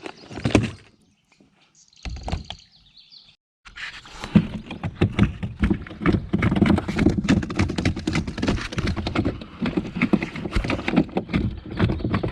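Largemouth bass flopping and thrashing on the boat floor: a couple of short knocks, then from about four seconds in a fast, unbroken run of thumps and slaps.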